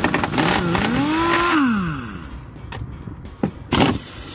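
Impact wrench hammering at a 16 mm bolt on the rear shock absorber's top mount, with a whine that rises and then falls away as the gun winds down about two seconds in. A shorter burst of hammering comes near the end.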